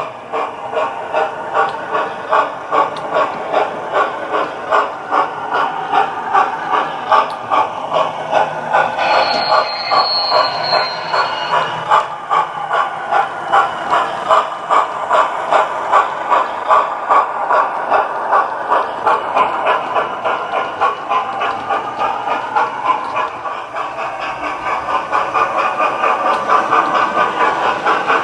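Model steam locomotive's digital sound, a Hornby TTS decoder playing through a megabass speaker in a Hornby P2: a steady run of exhaust chuffs at about two to three a second. About nine seconds in, a high whistle note sounds for about two seconds.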